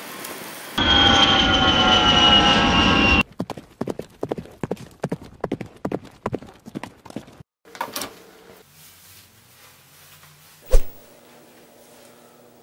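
A loud rushing noise with a slowly falling whine for about two and a half seconds. It cuts off into quick, even footsteps for about four seconds, then a single thump near the end.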